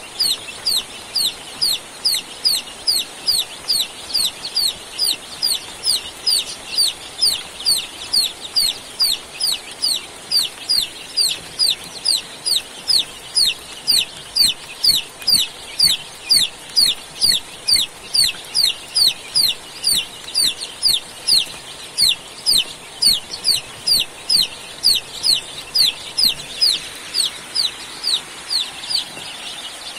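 Domestic chicks peeping steadily: a continuous string of short, high, falling peeps, about two or three a second, growing fainter near the end.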